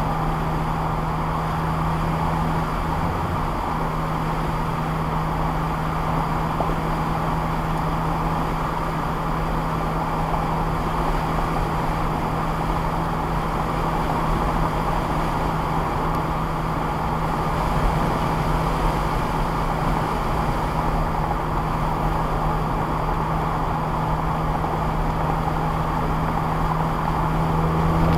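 Ford Fiesta ST engine running at steady revs while the car cruises, a constant low drone over road noise, picked up by a dashcam microphone inside the car.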